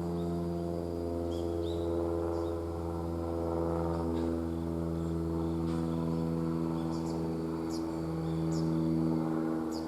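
Small birds giving short, high chirps, a few at first and more often in the last few seconds. Under them runs a steady low, humming drone.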